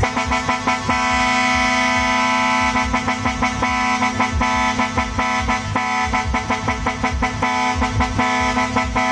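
Bank of roof-mounted air horns on a customised dump truck sounding one long, steady chord of several tones.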